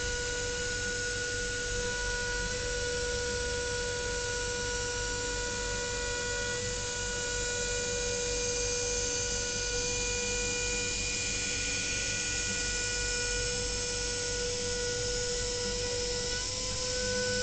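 CNC machine spindle running steadily with a high, steady whine while milling 10 mm aluminium, with a rough cutting noise underneath.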